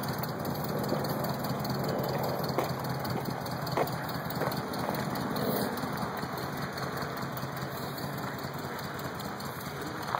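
Engine of a motorized parade float running steadily as it drives off over gravel, with a few sharp clicks along the way.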